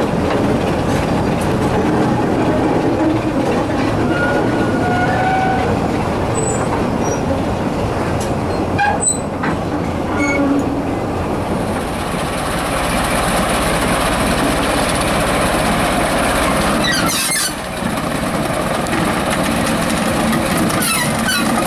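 Diesel train running along the line: steady, loud running and rail noise with a few short, faint squealing tones. A high hiss comes in about halfway.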